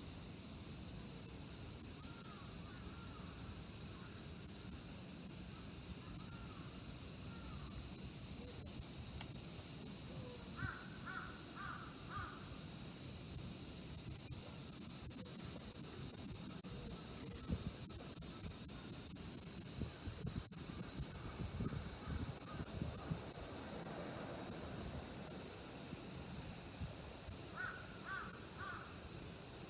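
A steady, high-pitched insect chorus, with a crow cawing in two runs of about four short caws, one about ten seconds in and one near the end. A low rumble sits underneath.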